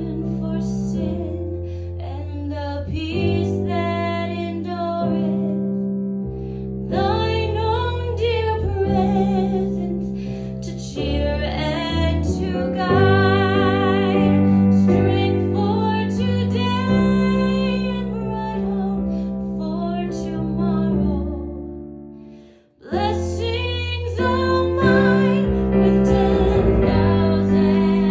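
A song with a woman singing in a sustained, vibrato-rich voice over instrumental accompaniment; the music fades almost to nothing about three quarters of the way through, then starts again.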